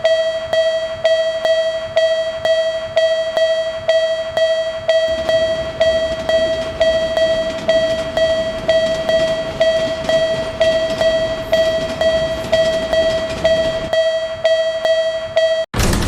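Japanese railroad crossing warning bell ringing its repeated clang on one steady pitch, a little over two strikes a second, signalling that a train is coming. From about five seconds in to about fourteen, the noise of a passing train sits under it, and the bell cuts off suddenly near the end.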